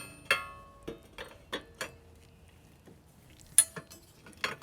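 Steel parts clinking and knocking together as a steel bar is pushed through welded receiver brackets: about seven light metal clanks, the first one ringing briefly, the loudest about three and a half seconds in.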